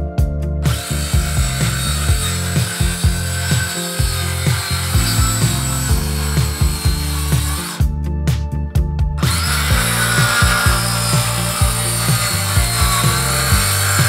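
Cordless circular saw cutting through lumber in two long passes, the second starting after a short break at about eight seconds, over background music with a steady beat.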